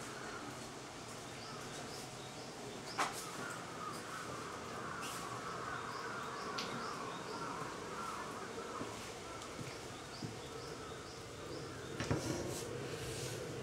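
Background ambience with a short high chirp repeating steadily, like an insect or small bird, over a wavering higher drone. Two sharp knocks stand out, one about three seconds in and one near the end.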